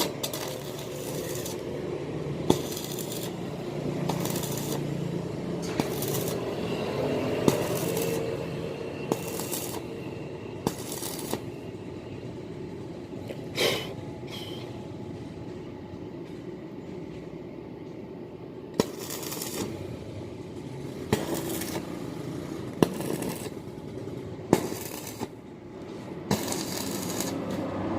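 Electric arc welding: the arc sputters and crackles with irregular sharp pops over a steady hum from the welding machine.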